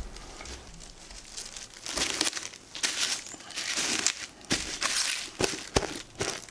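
Crinkling and rustling in short bursts about once a second, with several sharp clicks or knocks in between.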